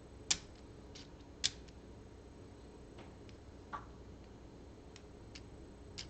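Scattered sharp clicks of LEGO Technic plastic parts being handled and snapped together. Two louder clicks fall in the first second and a half, then fainter ticks come about every second.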